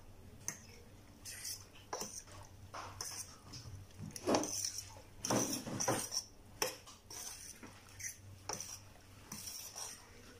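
Metal fork stirring thick shrimp-and-flour okoy batter in a metal saucepan, scraping and clinking against the pan in irregular strokes, heaviest around the middle.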